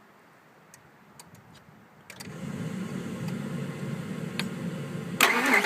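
A few light clicks, then from about two seconds in a steady low hum as the 2002 Ford F-150's 5.4-litre Triton V8 is keyed on, and near the end the engine starts with a sudden loud rise. The truck has a whine at start-up that the owner traces to a faulty PCV valve.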